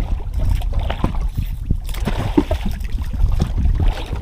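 Water sloshing and splashing at the boat's side, with short irregular splashes throughout over a low wind rumble on the microphone.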